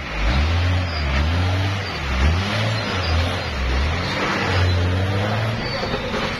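Hino 500 dump truck's diesel engine labouring as the truck pulls slowly past close by, its deep note repeatedly rising and falling with the throttle. A gritty rumble of tyres on the dirt road runs underneath.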